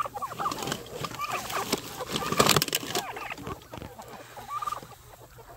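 Chickens clucking with other short poultry calls, including a loud rasping call about two and a half seconds in; the calling thins out near the end.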